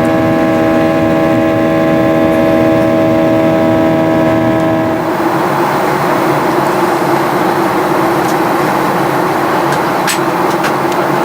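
Jet engine noise of a Boeing 737 heard inside the cabin. For about five seconds it is a steady, many-toned hum, then it changes abruptly to an even rush, with a few sharp clicks near the end.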